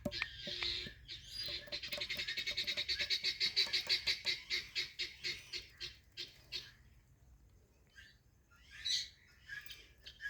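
Indian ringneck parakeet chattering: a fast run of short, high, repeated notes, about eight a second, lasting several seconds. It trails off, and a single short call follows near the end.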